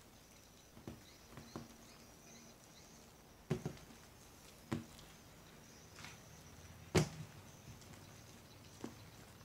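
Slime being kneaded by hand into shaving foam: scattered sticky pops and squishes, about seven in all, the loudest about seven seconds in.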